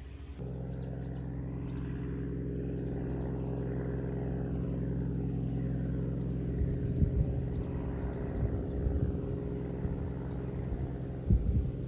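A steady engine hum that holds one pitch, growing slightly louder toward the middle and then easing off. Small birds chirp over it, and there are a few low thumps.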